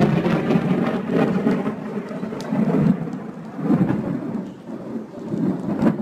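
Thunder rumbling through steady rain, the rumble swelling and fading in waves, with a few sharp clicks of raindrops.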